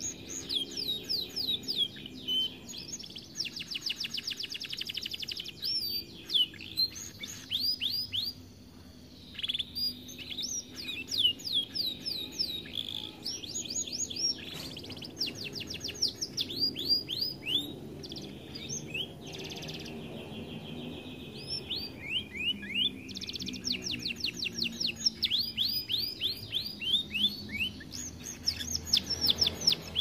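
Canary singing: fast trills of rapidly repeated notes and runs of quick downward-sweeping whistles, breaking off briefly about eight seconds in.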